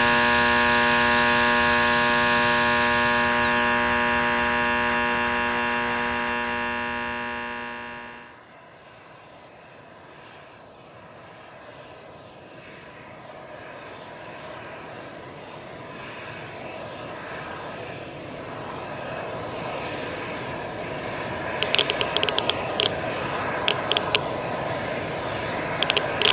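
Composed sound collage. A sustained buzzing chord with a high whine that drops in pitch fades away and cuts off about eight seconds in. A rushing, hissing ambience then swells slowly, with bursts of crackling near the end.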